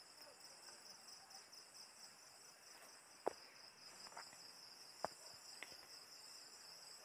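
Near silence with crickets chirping faintly and steadily in the background. Two faint clicks, about three and five seconds in, come from handling the objects on the table.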